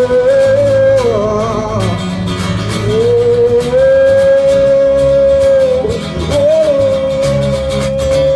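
A live band playing a song: guitar and bass under a long held high melody line that slides between notes and settles into long steady pitches.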